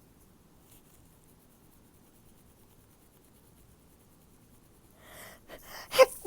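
Near silence, then near the end a few quick breaths in, followed by a sharp, short, stifled sneeze held in behind closed lips.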